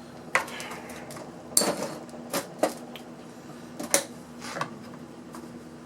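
Irregular sharp clicks and knocks, about six in all, from hand tools and small parts handled on a workbench while a portable power pack is taken apart. A steady low hum sits underneath.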